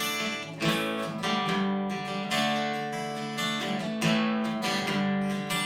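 Solo acoustic guitar strumming chords between sung lines of a song, with a strum roughly every second and no voice.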